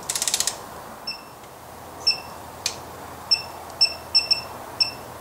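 Electronic torque wrench on a steering coupling clamp bolt: a quick burst of ratchet clicks, then a series of short high beeps as the wrench signals the preset 25 newton-metre torque, with a single sharp click among them.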